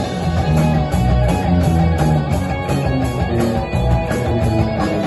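Rock band playing live: distorted electric guitars and electric bass over a drum kit, in an instrumental passage with no vocals.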